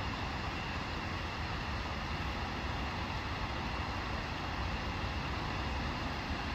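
Steady background noise: a constant low rumble under an even hiss, with no bird calls.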